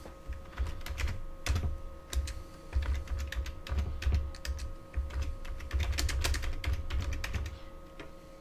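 Typing on a computer keyboard: an irregular run of key clicks with dull low thuds, stopping shortly before the end, over a faint steady hum.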